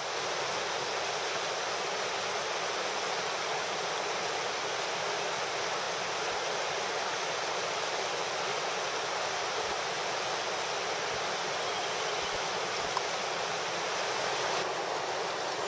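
Steady rushing of a shallow, fast-flowing river, with one small click near the end.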